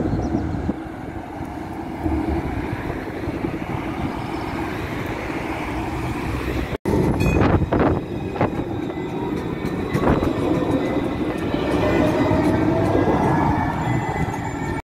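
Tram running on rails: a steady rumble, then, after a cut about 7 s in, scattered clicks of the wheels on the track and the rising whine of its electric traction motors.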